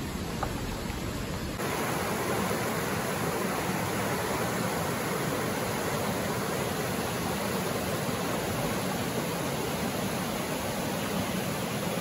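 Low road noise from inside a moving car for about the first second and a half, then a cut to a shallow, clear mountain stream rushing over rocks and boulders, a steady, even rush of water.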